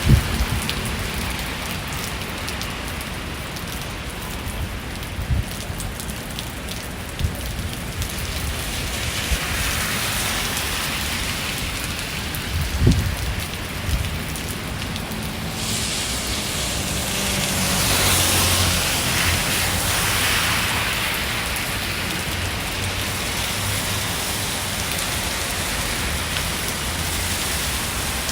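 Rain falling on the street in a steady hiss, with a few low thumps scattered through it. Just past the middle the hiss grows brighter and louder for several seconds, then settles back.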